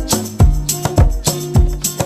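Background music with a steady percussive beat and short pitched notes.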